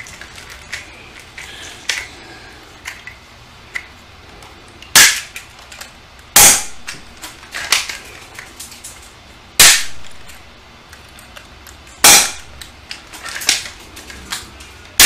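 Spring-powered airsoft pistol, an Elite Force HK VP9, fired five times, each shot a sharp snap one and a half to three seconds apart. Between shots come lighter clicks of the slide being racked to cock it.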